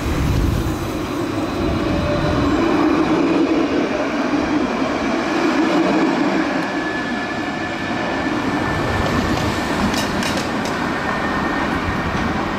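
Low-floor city tram running past on street rails: a steady rumble and hum, loudest a few seconds in, with a faint high whine midway and a few sharp clicks near the end.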